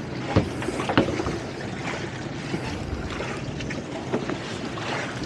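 Steady wind on the microphone and water noise around two boats lying alongside each other, with a faint low hum. A couple of sharp knocks about half a second and a second in.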